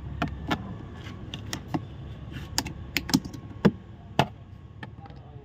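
A screwdriver clicking and tapping against the plastic trim around a Range Rover's interior door handle as a small cover is pried off: light, irregular clicks, about ten of them, thinning out in the last second or so.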